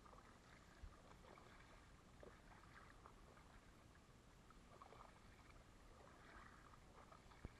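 Faint kayak paddle strokes: soft, irregular splashes and drips as the blade dips in and lifts out of the water, with two light knocks, one about a second in and one near the end.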